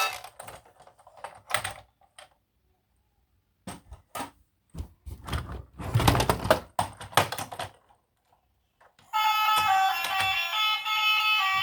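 Handling noise of toys being unboxed: irregular sharp clicks and knocks in scattered bursts, with silent gaps between them. A tune with steady notes starts about nine seconds in.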